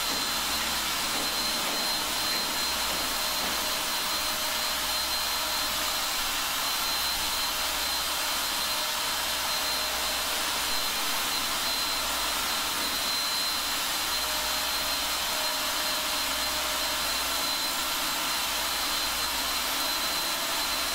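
Corded electric drill running continuously as it bores a hole through thick steel without a pilot hole: a steady motor noise with a thin high whine held throughout.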